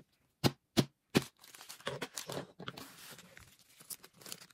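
Three sharp clicks in quick succession, then a foil packet crinkling and tearing as it is torn open.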